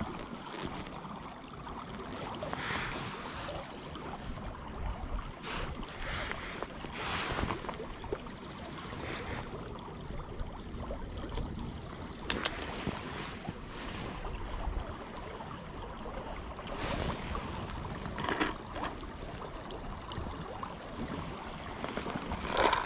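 Wind buffeting the microphone over flowing river water, with scattered rustles and small clicks of hands handling fishing line and a metal knot-tying tool, and a louder knock near the end.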